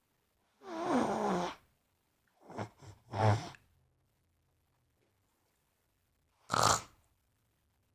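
Sleeping dog snoring: one long snore about a second in, its tone sliding down, a few shorter snores around three seconds in, and a short sharp snort near the end.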